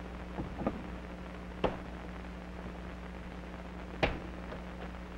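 Sound effects from an old film soundtrack: a few light clicks and knocks over a steady low hum, the sharpest about four seconds in as a wooden icebox door latch is worked open.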